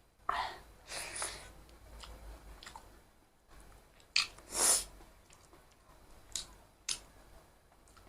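Close-miked chewing and eating sounds of a person eating a mukbang meal. There are two louder noisy rushes, one near the start and one around the middle, and a couple of sharp mouth clicks later on.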